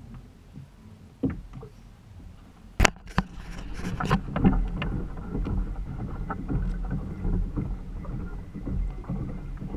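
Water sloshing against a fishing kayak's plastic hull, with small knocks and clicks from the boat and gear. A sharp click about three seconds in, after which the sound is louder and fuller.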